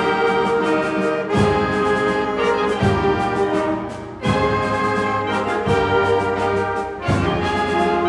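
Symphonic wind band playing brass-led sustained chords, with a new accented chord entering about every second and a half. The sound briefly fades just before a strong full-band entry about four seconds in.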